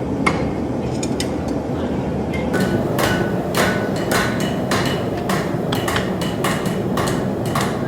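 Blacksmith's hand hammer striking hot steel on an anvil, ringing with each blow, over a steady background noise. A few light taps come first, then from about two and a half seconds in a steady run of blows, two to three a second, drawing out a taper.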